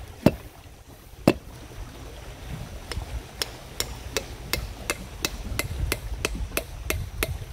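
Knife blade struck repeatedly into the shell of a young coconut to split it open and get at the flesh: two sharp hits near the start, then a steady run of strikes about three a second.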